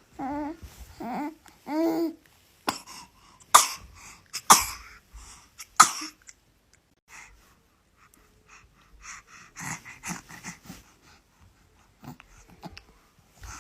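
A baby cooing in short high-pitched calls, then three sharp, breathy bursts a second or so apart, followed by softer, scattered breathy noises.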